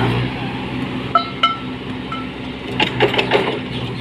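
Tractor engine of a piling rig running steadily. There are two sharp metallic clinks with a short ring about a second in, and a rattle of metal clanks near the end.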